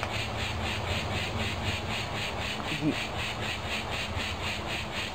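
A steady, fast, even pulsing chirr, about five pulses a second, with one short low quack-like call about three seconds in.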